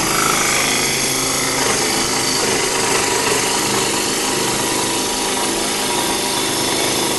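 Electric saw running steadily while cutting through wood.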